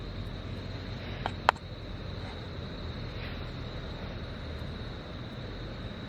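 Campfire burning with a steady hiss and two sharp pops in quick succession about a second and a half in.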